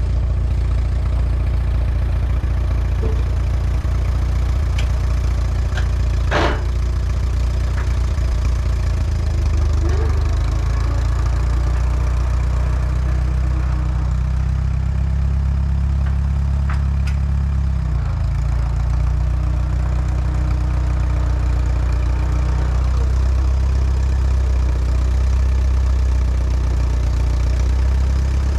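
Allis-Chalmers WD tractor's four-cylinder engine idling steadily, with a single sharp metallic clank about six seconds in.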